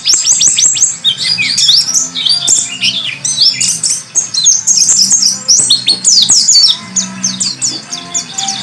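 White-eye (pleci) song: a fast, nearly unbroken run of high chirps and trills, played as a tutor recording for teaching caged songbirds.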